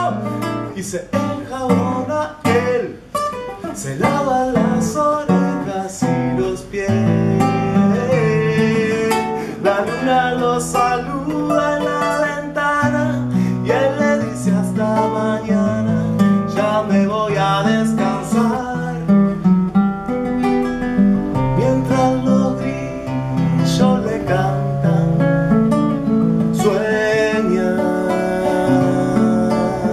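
Classical (nylon-string) guitar played solo: a steady flow of plucked notes over held bass notes.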